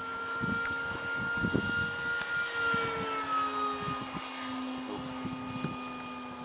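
Electric motor and propeller of a battery-powered RC model plane whining steadily in flight overhead. The pitch drops a little about halfway through.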